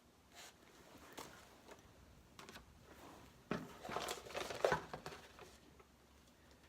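Packaging crinkling and rustling as items are handled, in scattered bursts that grow busiest and loudest about halfway through, then die away.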